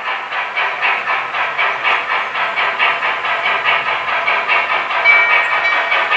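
Steam-exhaust chuffing from the onboard sound system of an MTH die-cast model of Norfolk & Western Class J 611, about four chuffs a second over a steady hiss. A thin high tone joins about five seconds in.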